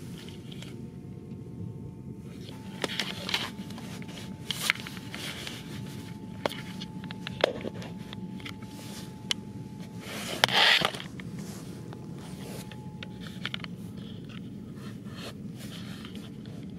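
Steady low rumble inside a passenger train carriage, with scattered small clicks, scrapes and rustles of things being handled. A short, louder rustle comes about ten seconds in.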